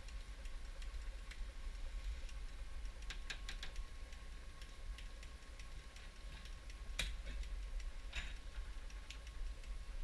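Light plastic clicks and taps from a 50 ml syringe and drain-line tubing connectors being handled as the syringe is filled with bleach solution and fitted to the connector. There is a quick cluster of clicks about three seconds in and sharper single clicks around seven and eight seconds, over a steady low hum.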